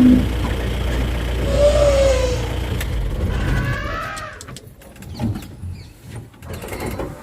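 Elephant calls: the end of a trumpet at the very start over a low rumble, a short falling call about two seconds in and higher cries around three to four seconds. After about four seconds it drops to quieter scattered clicks and knocks.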